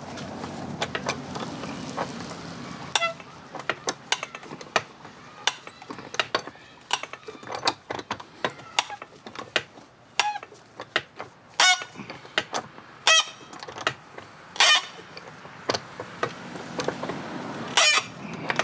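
Pipe wrench working the stuck, damaged transom clamp screw of a Johnson 25 hp outboard: irregular metal clicks and knocks as the wrench bites and slips, with several short squeaks from the screw as it turns.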